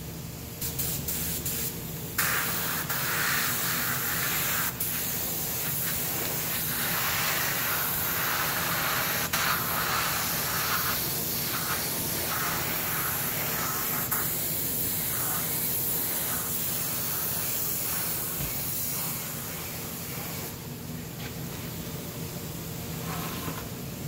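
Compressed-air touch-up spray gun hissing as it lays a wet final coat of clear onto a repaired alloy wheel, the 'burn-in' coat meant to melt the new clear into the old. It sprays in long, steady passes with a few short breaks and eases off near the end.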